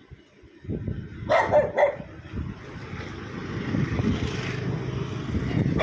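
A small dog barks a couple of times about a second and a half in and once more at the very end. Between the barks a low rumble builds, growing louder toward the end.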